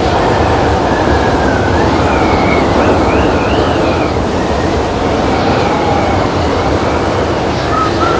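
Loud, steady rushing noise with high whistling tones that waver and glide up and down, a storm-like soundscape from the performance's sound collage.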